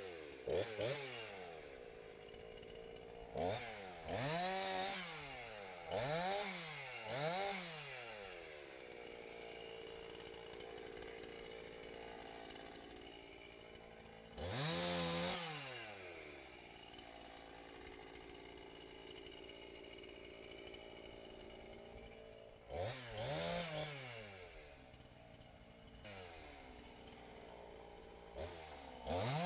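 Two-stroke chainsaw idling, revved up to full throttle and dropped back to idle about six times, bucking a log into firewood.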